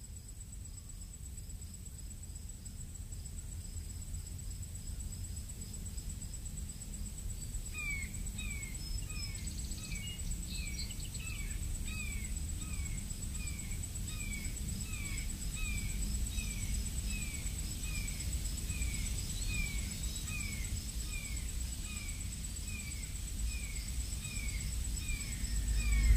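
A low rumble slowly swelling in loudness under a steady high whine, joined about eight seconds in by short falling chirps that repeat about twice a second: an ambient noise intro to a song.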